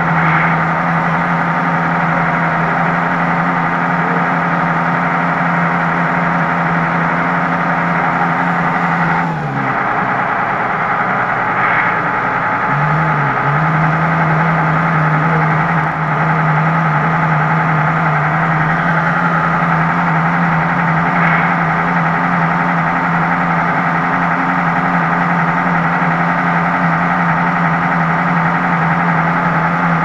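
Electronic sound unit in an RC Tatra 130 model truck playing a simulated air-cooled diesel V8 with whining cooling fans, heard through the model's small speaker. The engine note holds steady, drops away about nine seconds in, and picks back up with a short rise a few seconds later.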